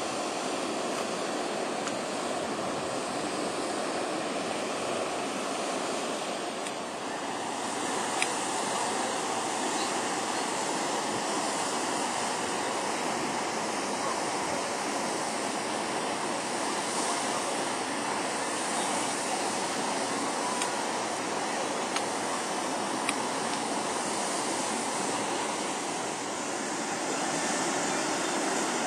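Steady rushing noise throughout, with a few faint clicks.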